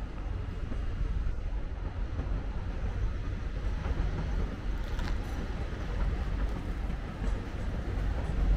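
TER regional passenger train rolling slowly through the station on a far track: a steady low rumble of wheels on rails, with one short sharp click about five seconds in.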